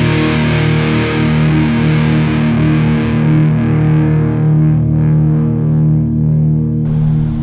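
Distorted electric guitar intro music holding a sustained chord, its treble slowly fading. Near the end a steady rushing noise of falling spillway water cuts in under it.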